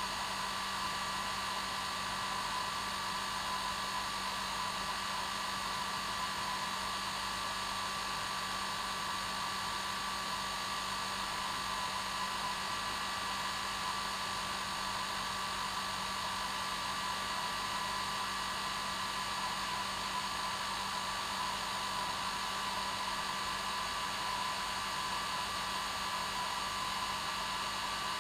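Hair dryer running steadily on its normal setting, a constant rushing whoosh with a steady hum through it.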